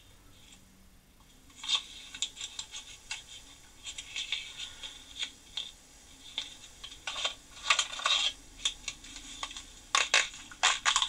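Small metal tools clinking, clicking and rattling as they are handled and set into a wooden drawer: irregular light knocks and scrapes that start about a second and a half in, with a few sharper knocks near the end.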